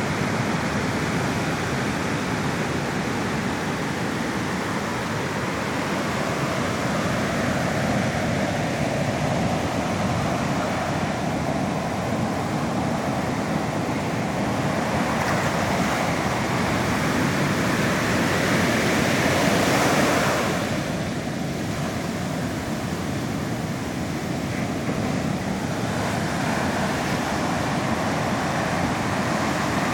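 Sea surf rushing steadily, swelling to a louder surge about two-thirds of the way through, then easing off abruptly.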